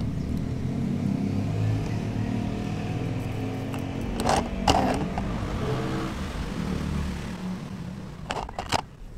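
A motor vehicle engine running nearby, a low steady rumble that dies away near the end. A few sharp clicks come in the middle and again near the end.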